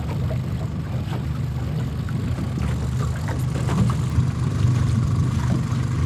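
Boat motor running steadily at low, trolling-like speed, a constant low hum with a faint steady whine above it.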